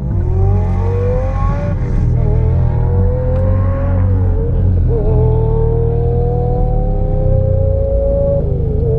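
Dodge SRT-4's turbocharged 2.4-litre four-cylinder engine heard from inside the cabin while the car drives under way. Its pitch climbs slowly and drops back several times, over a steady low rumble.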